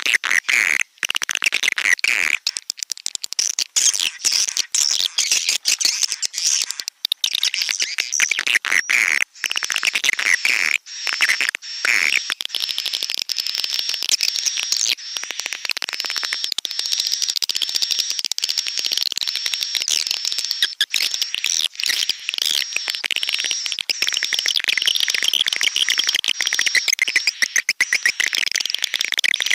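Swiftlets twittering and chirping in a dense, continuous chorus of high, rapid calls, from a recorded swiftlet call track of the kind played to lure swiftlets into a nesting house.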